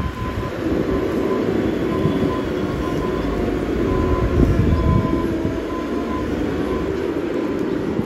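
Heavy diesel machinery working nearby: a steady engine drone with a held whine over it.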